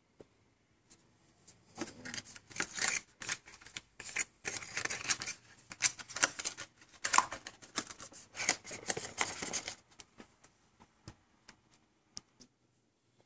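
Cardboard packaging being handled inside the box: a stretch of dense rustling and scraping full of small clicks, starting about two seconds in and stopping a few seconds before the end, followed by a few faint ticks.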